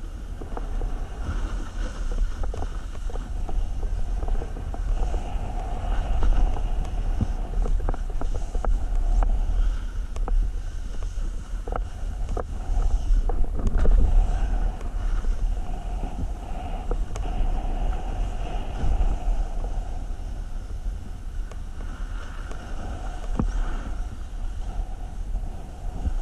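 Wind buffeting an action camera's microphone in a steady low rumble during a run down a ski slope. Under it is the scraping hiss of edges sliding over packed, cut-up snow, with scattered small clicks and knocks.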